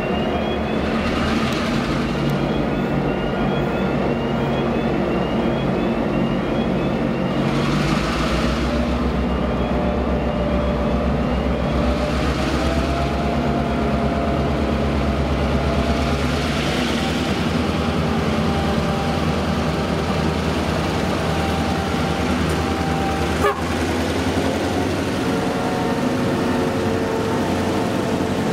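Two ex-VR S class streamliner diesel-electric locomotives, each with an EMD 16-567C two-stroke V16, working hard as they pull a loaded grain train away from a stand. They howl, and the engine whine climbs in pitch as they notch up and draw past close by, with a few short bursts of hiss and one sharp click near the end.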